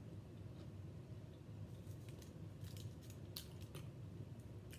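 Faint eating sounds: scattered small crunches and clicks of crispy fried chicken being chewed and picked at, over a low steady hum.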